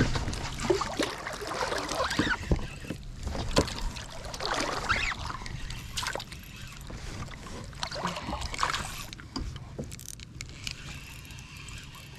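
Strong wind buffeting the microphone as a low, steady rumble, with water splashing and slapping against a kayak and scattered short knocks.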